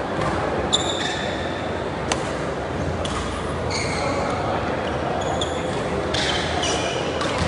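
Badminton rally: sharp racket strikes on the shuttlecock and repeated high squeaks of players' shoes on the court mat, over the steady murmur of voices in a large hall.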